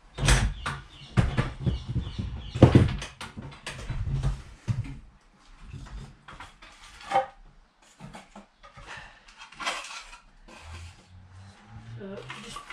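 Knocks, scrapes and handling noise from a wooden shed door being held and shifted in its frame while its hinges are fitted. The sounds come fast and loud in the first few seconds, then thin out to scattered knocks.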